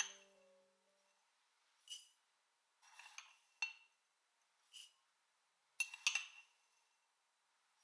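Glassware clinking: a small glass tumbler knocking against a glass mixing bowl as instant coffee granules are tipped out of it, with short rattles of the granules landing in the bowl. Several separate clinks a second or so apart, the sharpest about six seconds in.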